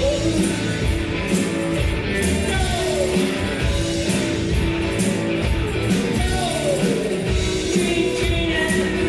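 Live rock band playing: electric guitars and drums with singing, at a steady beat, and several downward pitch slides.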